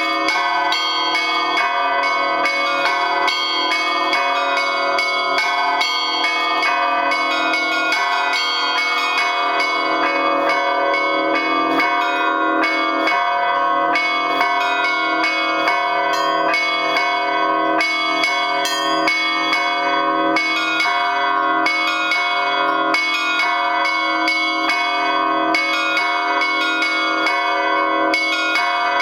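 Russian church bell ringing (zvon) on eight bells (one large, four medium and three small) cast by the Lavrov, Olovyanishnikov and Shuvalov foundries, struck in a continuous peal in three-four time. Frequent strikes keep many bell pitches sounding at once at an even loudness.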